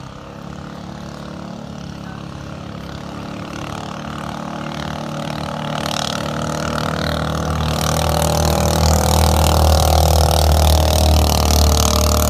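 Racing bangka boat's engine running at a steady pitch, growing steadily louder as the boat comes closer, with the rush of water and spray rising over it in the second half.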